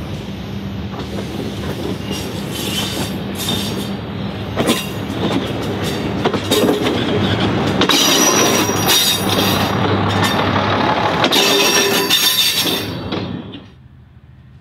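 A 600 hp Tulloch diesel railcar runs slowly past, with a steady diesel engine hum, wheels clicking over rail joints and some high wheel squeal. It is loudest as it goes by, then drops away suddenly near the end.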